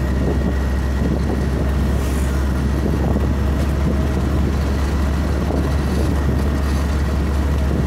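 Steady low drone of a vehicle driving at cruising speed on a paved highway, with road and wind noise and a faint constant high tone.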